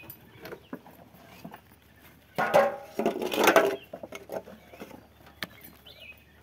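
A water buffalo feeding at a cement trough while a steel plate scrapes and knocks against the trough: scattered light clicks and knocks, with a loud rough noisy burst lasting about a second and a half midway through.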